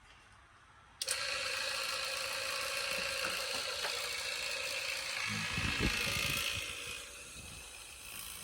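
A small motor starts suddenly about a second in and runs steadily with a whirring hum, easing off near the end.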